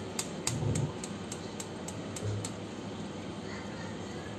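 Air fryer timer clicking evenly, about four clicks a second, stopping after two and a half seconds or so, over a steady hum.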